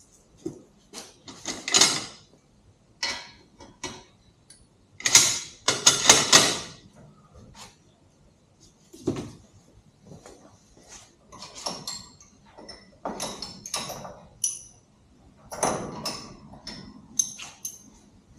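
Metal hardware being handled and fitted by hand on a swing arm extension: irregular clinks, clicks and scrapes of bolts, washers and nuts. The longest and loudest scraping clatter comes about five to six and a half seconds in.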